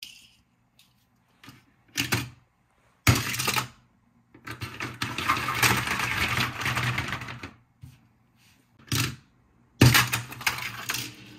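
Plastic Hot Wheels toy track set being played with: sharp clicks and knocks from the car launcher and a die-cast toy car clattering along the plastic track. There is a longer rattle of about three seconds in the middle.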